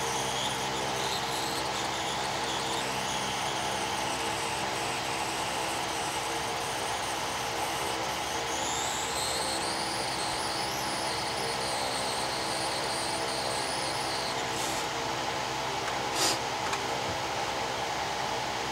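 Hot-air rework station blowing steadily, a constant airy hiss with a hum, while heating a phone circuit board to reflow the solder under a power IC. A high whine rises about halfway through and fades a few seconds later, and there is one sharp click near the end.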